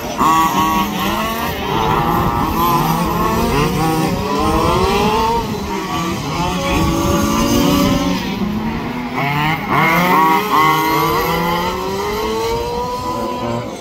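Several 1/5-scale radio-controlled racing trucks' small petrol two-stroke engines, revving up and down as they race, with overlapping rising and falling pitches as they accelerate and back off through the corners.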